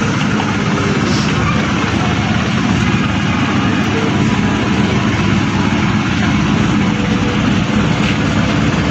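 Steady, loud, even rumble of a running vehicle or motor.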